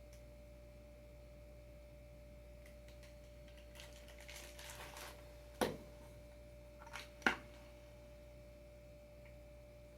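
Skateboard hardware being handled: light rustling, then two sharp clicks or knocks about five and a half and seven seconds in. A faint steady tone hums underneath.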